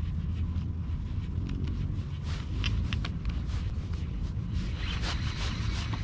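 Baitcasting reel being wound in, a raspy clicking whir that comes in spurts from about two seconds in and runs denser near the end as the lure is retrieved. A low wind rumble on the microphone sits under it throughout.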